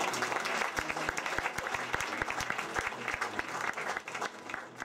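Theatre audience applauding, the clapping thinning and dying away near the end.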